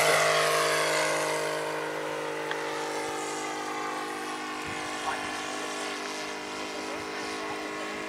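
Saito FG-60R3 three-cylinder 60cc petrol radial engine of a large radio-controlled model plane running steadily in flight. It fades over the first couple of seconds as the plane climbs away, then holds at a steady level.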